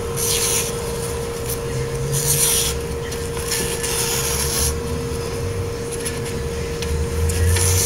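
Knife blade slicing through a sheet of paper to test its edge: several separate hissing, rasping cuts, the last and loudest near the end.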